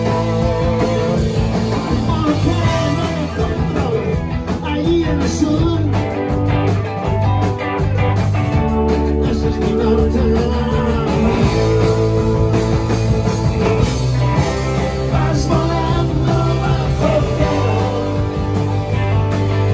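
Live rock band playing loudly: electric guitars, electric bass, drums and keyboard, with singing over the band.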